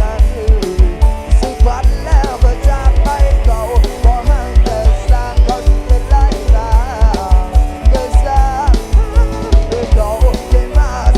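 Loud music from a Thai rot hae sound-truck system being sound-tested: a heavy bass-drum beat, two to three thumps a second, under a wavering lead melody.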